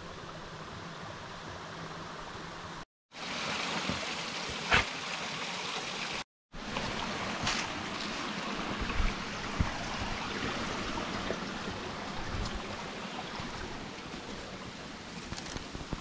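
Small mountain creek running over rocks, a steady rushing, broken twice by a moment of silence, with a few sharp clicks, the loudest about five seconds in.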